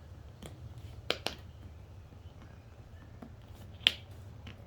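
A few sharp plastic clicks and snaps, two close together about a second in and a louder one near the end, as the plastic hook strip holding a car seat's leather upholstery is pried at to work it loose. A steady low hum runs underneath.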